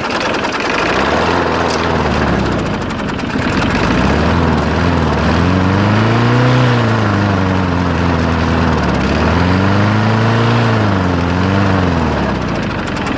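Briggs and Stratton lawn mower engine running, its speed rising and falling three times as the choke linkage and its spring are worked by hand; the engine tends to fizzle out.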